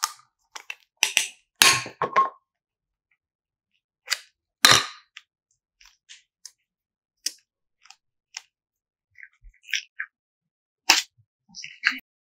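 Hard plastic hexagon box being handled and opened, giving several sharp cracks and snaps, the loudest in the first two seconds and another about halfway through. Smaller sticky clicks follow as soft green modelling clay is squeezed out and pulled.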